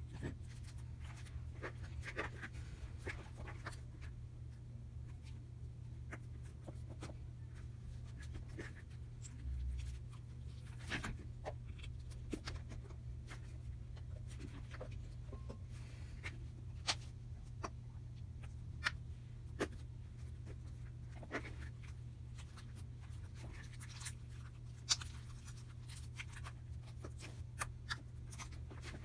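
Fingers squishing and poking soft slime, giving frequent short sticky clicks and pops, over a steady low hum.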